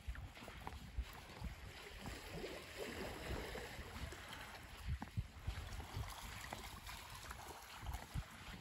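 Small waves lapping softly at a sandy shoreline as a steady wash of water noise, with irregular low thumps mixed in.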